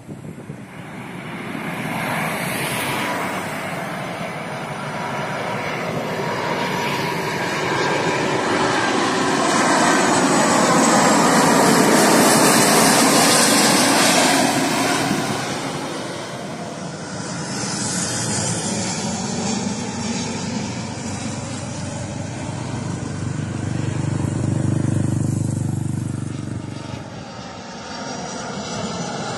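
Jet engines of a twin-engine airliner on landing approach passing low overhead: the roar builds to its loudest about halfway through, with a whine that slides down in pitch as it passes, then fades. A second swell of low rumble comes near the end.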